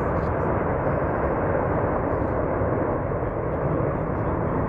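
Boeing 747 Dreamlifter's four jet engines running on the runway: a steady, dense rumble of engine noise with no change in level.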